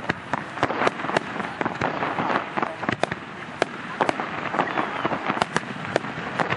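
Aerial firework shells bursting in quick succession: sharp bangs at irregular intervals, several a second, over a steady noisy background of the display.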